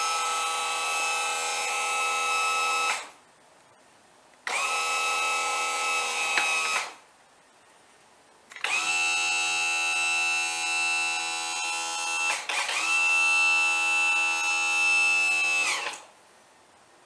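Electric motor of a Mercruiser Alpha One power trim pump running in four spells of about two to four seconds each, with short pauses between. Each spell starts with a brief rising whine, holds a steady whine, then winds down. The last spell is a little louder than the others.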